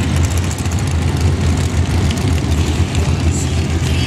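Front-engine dragster's engine idling, a loud, steady, low-pitched sound with no revving.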